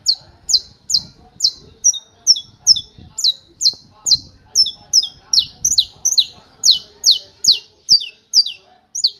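Saffron finch (canário-da-terra) singing a 'martelo' (hammer) song: a long, even series of sharp, high, falling notes, a bit more than two per second, some given as quick double notes. The series stops just before the end.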